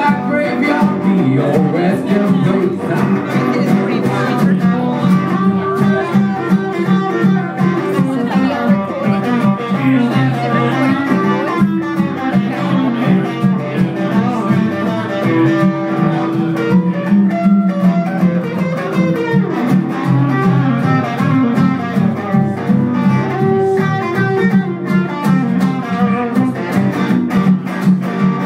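Two guitars, an orange hollow-body electric and an acoustic, playing a blues instrumental break, strummed and picked together in a steady rhythm, with one note held for a few seconds about halfway through.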